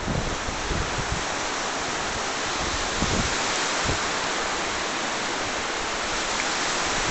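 Steady, even rushing hiss of wind and surf on an open seashore.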